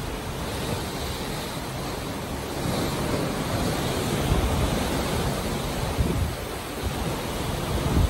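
Sea water rushing and churning along the hull of a moving ship, a steady wash with wind buffeting the microphone in low rumbles.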